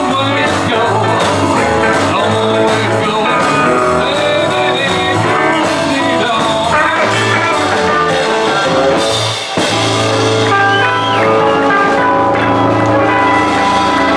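Live rockabilly band playing: electric guitar, electric bass and drums, with a singer. The music drops out briefly about two-thirds of the way through, then carries on with held notes.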